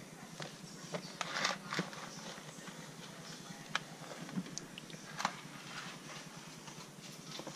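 A hand rummaging through dry wood-shaving bedding in a plastic tub: faint rustling and crackling, with a few sharp clicks.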